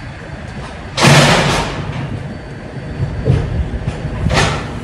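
Pallet jack rolling across a semi-trailer's floor: a rumbling, clattering run with a loud jolt about a second in and another burst near the end.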